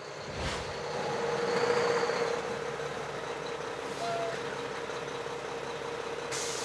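Semi-truck sound effect: a steady rushing hiss with a held hum underneath. It swells over the first couple of seconds, then holds level.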